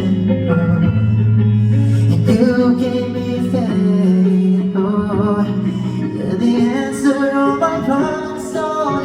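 Live music: a band plays a slow song with singing over it.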